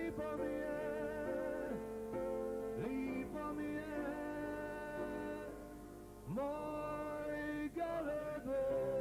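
Male voices singing a slow ballad at the piano, holding long notes with vibrato. The sound drops briefly about six seconds in, then a voice slides up into the next held note.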